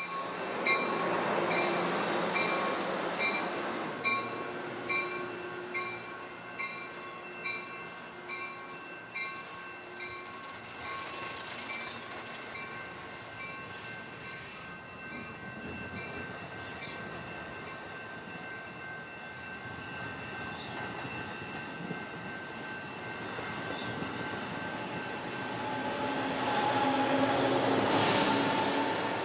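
Grade-crossing warning bells ringing about once a second over the running noise of a passenger train at the crossing. The train noise swells near the end, with some steady tones.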